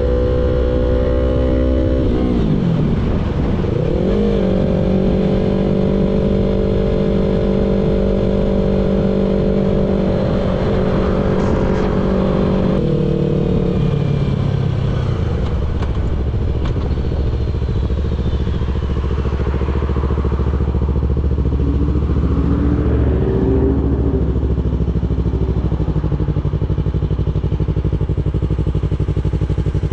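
2016 Yamaha R3's parallel-twin engine running as the bike is ridden. Its note dips and climbs back a few seconds in and holds steady, then drops about halfway through to a lower, steady running note as the throttle comes off.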